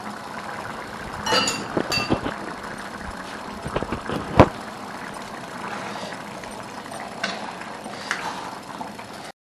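A metal spoon knocking and scraping against a pan of chicken fry several times over a steady background noise, with the loudest clank about four seconds in. The sound cuts off suddenly near the end.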